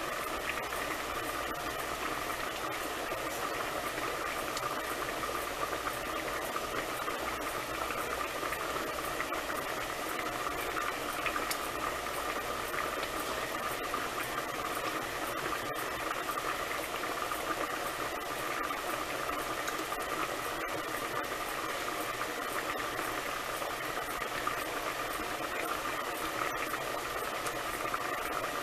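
Pot of lima beans and ham hocks at a hard boil, with steady bubbling and hissing and many small scattered pops.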